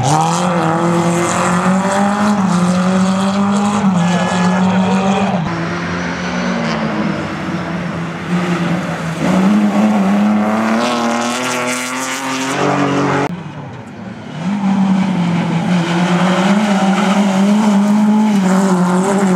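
Rally cars' engines revving hard as they race past, the pitch climbing and dropping with gear changes. The sound dips briefly about two-thirds of the way through, then an engine runs on at steady high revs.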